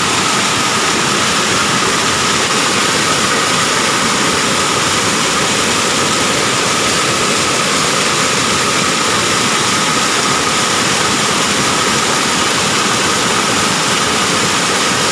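Small waterfall rushing: a loud, steady wash of falling water.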